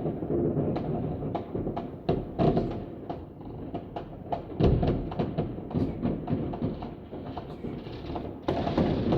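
Fireworks going off: an irregular string of sharp bangs and crackles over a low rumble, with one heavier boom about four and a half seconds in.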